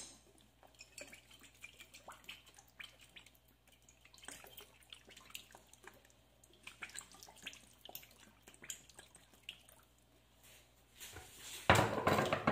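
Soy sauce pouring from a bottle into a pan of liquid, with faint small drips and splashes throughout. A louder, brief noise comes about a second before the end.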